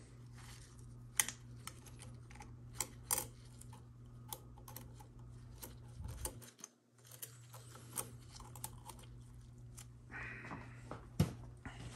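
Light metallic clicks and clinks of thin shims and a washer being handled and set onto a TH400 transmission planet gear assembly, to take up clearance between the planets. A steady low hum runs underneath.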